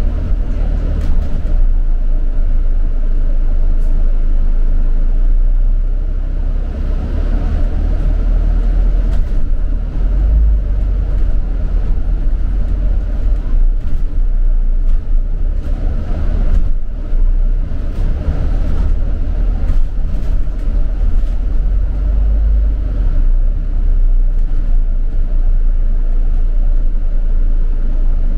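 London bus heard from on board: steady low rumble of the engine and road noise as it drives, with occasional brief clicks and rattles.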